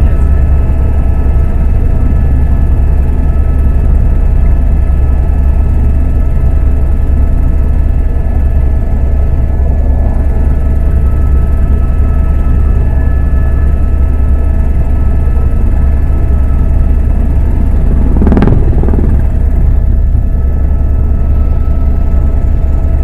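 Helicopter in flight heard from inside the cabin: a loud, steady low drone with a steady whine of several tones above it. A short rush of noise rises over it about eighteen seconds in and fades within a second.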